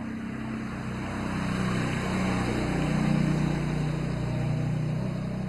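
A motor vehicle engine running and passing by, growing louder to a peak about three seconds in and then easing off.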